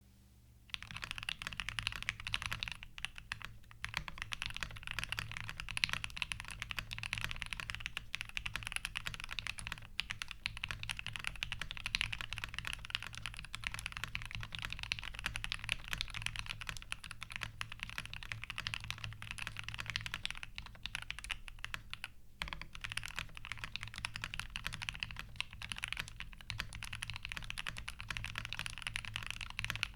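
Fast, continuous typing on a Monstargear Alu XO V3 mechanical keyboard with lubed Alpaca linear switches, PBT keycaps and a brass plate. The keystrokes start about a second in and run on with short pauses, a few seconds in and again a little past the middle.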